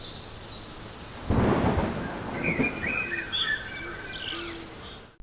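Recorded thunderstorm ambience: steady rain hiss with a clap of thunder about a second in that rumbles on, and short bird chirps over the rain in the second half. It cuts off abruptly at the end.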